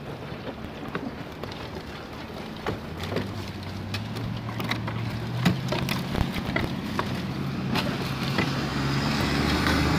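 Scattered knocks, clatters and scrapes of old roof boards and debris being pried off with a roofing fork and shovel, over the steady hum of a motor vehicle engine that sets in about three seconds in and grows louder toward the end.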